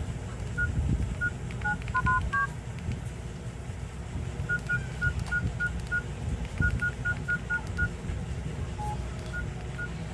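Keypad beeps of a Nokia 108 feature phone as its keys are pressed: short single-pitch tones, mostly one pitch with a few higher or lower, coming in quick runs of several presses, over a low rumble.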